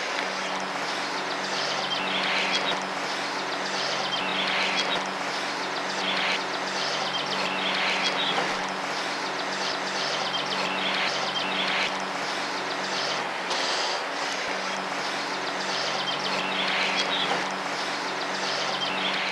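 Shallow river current rushing over a stony bed, close around the wading angler's legs, with a steady low hum underneath.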